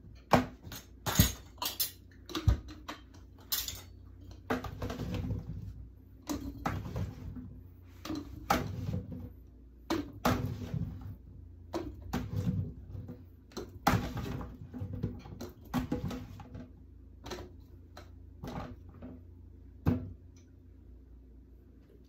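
A metal spoon scrapes and clinks against a bowl as potato chunks are dropped through a canning funnel into glass mason jars: irregular knocks, clinks and scrapes, with the sharpest clinks in the first few seconds.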